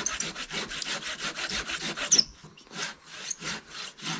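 Hand saw cutting through the base of a standing conifer trunk to fell it: quick, even back-and-forth strokes, about five a second, that break off a little past two seconds in, followed by a few slower strokes.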